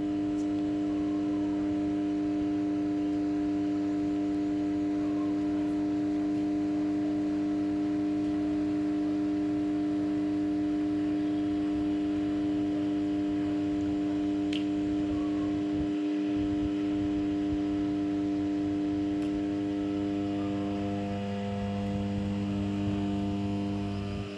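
500 MVA 400/230/33 kV interconnecting autotransformer humming while energized: a steady hum made of several constant tones stacked on one another, from magnetostriction in its core. The mix of tones shifts slightly near the end.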